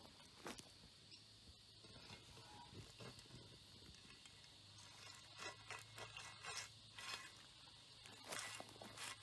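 Faint crunching and scraping of a steel shovel blade pushed across dry leaf litter and dirt, in short scattered clusters that are denser in the second half.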